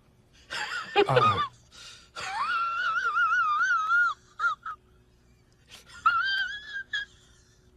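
A person making high-pitched, warbling wordless vocal sounds in three bursts. The longest lasts about two seconds, with a steady wobble in pitch.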